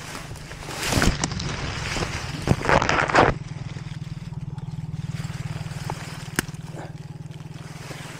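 Shimano SLX DC baitcasting reel being cranked in, a steady rhythmic whirr. During the first three seconds there is a louder stretch of rustling, scraping noise, and later a single sharp click.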